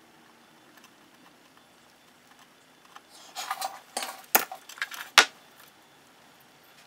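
Small metallic clicks and rattles from wires, crimp terminals and a hand tool being handled against the metal back of a 1963 Chevy C10 instrument cluster. They begin about three seconds in, with two sharp clicks a little under a second apart near the middle.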